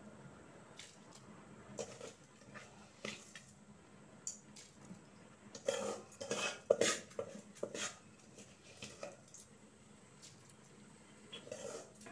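Scattered light clinks and knocks of metal kitchen utensils and cookware, most of them in a cluster about six to seven seconds in.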